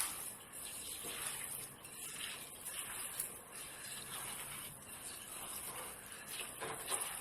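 Hands mixing washed rice and red lentils with oil, onion and spices in a bowl: soft, irregular wet squishing and rustling.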